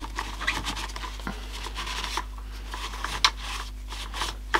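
A cloth rubbing and wiping over the plastic cyclone housing of a Dyson V7 stick vacuum, with scratchy rustling and small plastic clicks and taps as it is handled. A sharper click comes about three seconds in and another at the very end.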